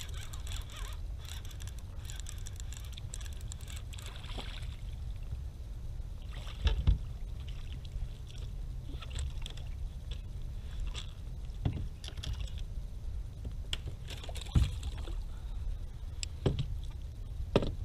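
Wilderness Systems Tarpon 120 sit-on-top kayak under paddle while trolling: paddle strokes in the water with a few sharp knocks against the plastic hull, over a steady low rumble.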